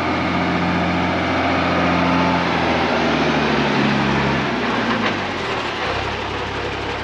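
1983 Unimog U1700L truck's diesel engine running as the truck drives up and passes close by. The engine note drops in pitch about three to four seconds in, then eases off.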